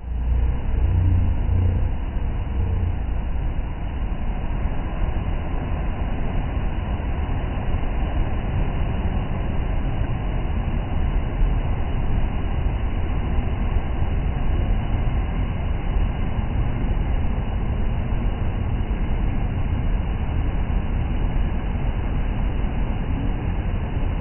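Surf on a sandy beach: small waves breaking and washing up the shore, heard as a steady rush with a heavy low rumble.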